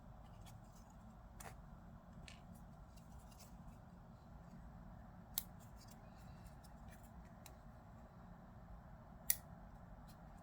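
Faint clicks and light taps of small 3D-printed plastic knife parts being handled during disassembly, with two sharper clicks about five and nine seconds in.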